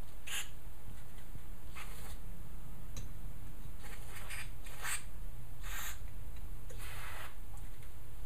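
Brief scratchy, hissy sounds, about five or six in all, a fraction of a second each, from hands working on a small lawn-mower carburetor, over a steady low hum.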